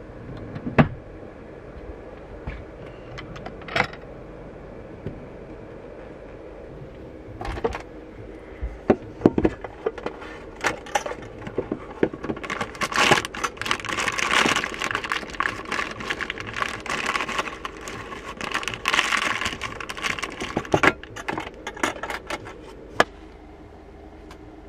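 Crinkling of a foil-wrapped tea bag being taken from a tin tea caddy and unwrapped, for several seconds in the middle, with sharp clicks and knocks from the tin and cup being handled. A steady low hum runs underneath.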